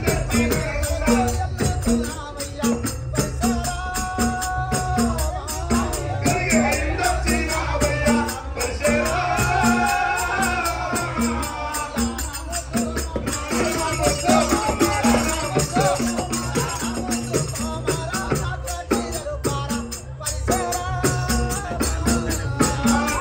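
Live Telugu folk-drama music: a voice singing a wavering melody over a harmonium, with a hand drum keeping a steady beat of about two strokes a second and jingling rattle-like percussion throughout.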